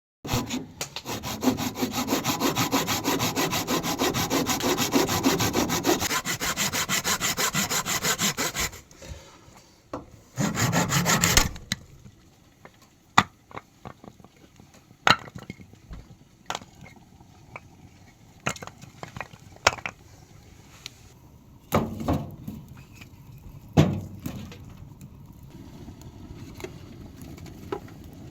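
Hand saw cutting through wood in fast, even strokes for about nine seconds, then a second short burst of sawing, followed by scattered sharp knocks and snaps of wood being handled.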